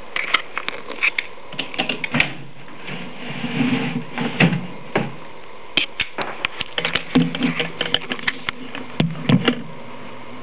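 Savannah monitor crunching a mouse in its jaws: irregular sharp cracks and clicks with a few duller knocks, in short clusters, stopping near the end.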